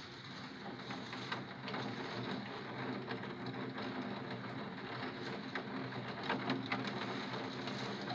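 Rain and graupel striking a window pane: a steady hiss with many sharp ticks scattered through it, densest toward the end.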